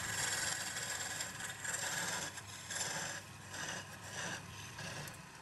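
Wood lathe running with a steady low motor hum while the spinning wooden spindle is worked by hand against the tool rest, a hissing scrape that swells and eases in repeated passes.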